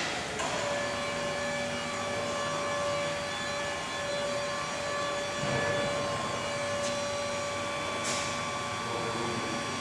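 The River Don Engine, a 1905 Davy Brothers 12,000 hp reversing steam mill engine, running with a steady mechanical hum and a few short hisses of steam, the clearest about eight seconds in.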